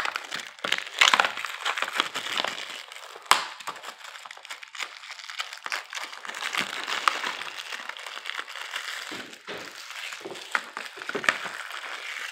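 Clear plastic shrink wrap being torn and peeled off a Blu-ray case, with continuous crinkling and many sharp crackles. One especially sharp crack comes about three seconds in.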